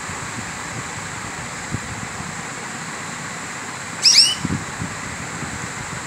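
A caged canary gives one short burst of a few quick rising chirps about four seconds in, over a steady background hiss.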